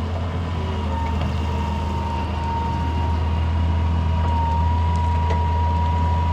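Hitachi EX200 crawler excavator's diesel engine running steadily under load, a deep drone with a thin, steady high whine over it, getting slightly louder about three seconds in.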